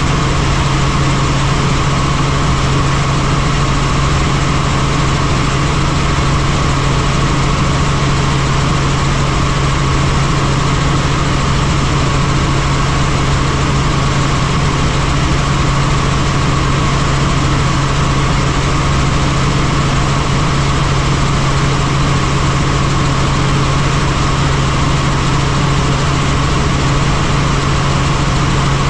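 Helicopter in flight: steady, unchanging engine and rotor noise with a constant low hum and a fainter higher tone above it.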